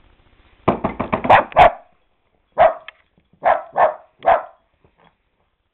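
Small dachshund barking on alert: a quick run of about half a dozen sharp barks about a second in, then four single barks spaced out. This is watchdog barking at someone the owner says is out there.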